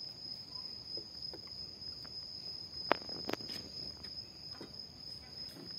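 Night insects trilling steadily on one high note, with two sharp knocks in quick succession about three seconds in.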